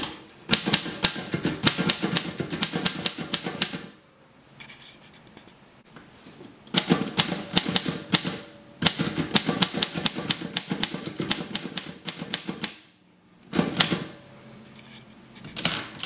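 Royal Model P portable typewriter being typed on: runs of crisp key strikes, about five a second, broken by pauses of a second or more between words.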